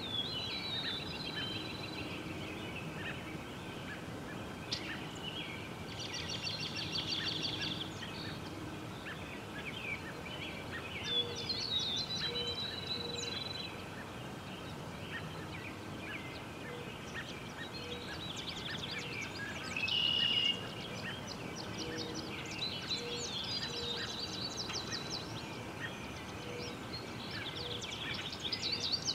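Wild songbirds singing over steady outdoor background noise, with several bursts of rapid high trills and chirps.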